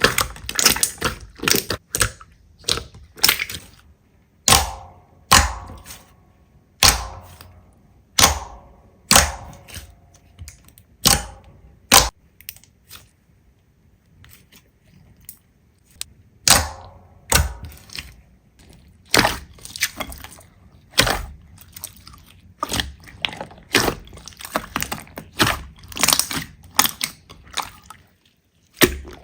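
Slime being pressed and worked by hand, giving a run of sharp pops and crackles at irregular intervals, with a quieter stretch about halfway through.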